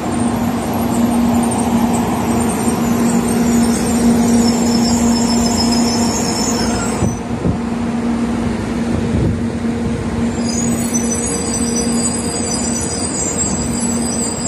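N700A-series Shinkansen train moving slowly along the platform track, with a steady low hum and several high whining tones. The whine breaks off about seven seconds in as the last car goes by and comes back a few seconds later.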